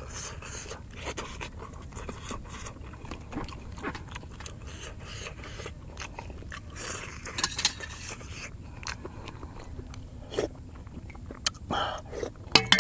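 Close-up eating sounds of boiled beef head: wet chewing and lip-smacking, with a knife clicking and scraping against the bone. Many short clicks throughout, the loudest cluster near the end as a bite goes into the mouth.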